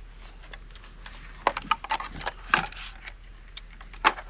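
Handling noise from a cordless finish nailer being worked in the hands: a quick cluster of sharp clicks and knocks about a second and a half in, and one more click near the end.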